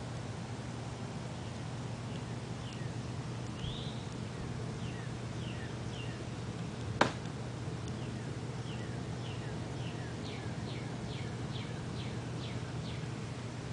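Birds in a nest cheeping: short, high, downward chirps, scattered at first and then about two a second near the end. One sharp click about seven seconds in, over a steady low hum.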